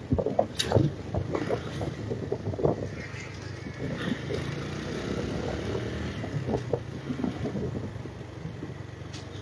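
TVS motorcycle engine running while riding slowly, with wind on the microphone. Uneven knocks and rattles in the first few seconds, then a steadier run.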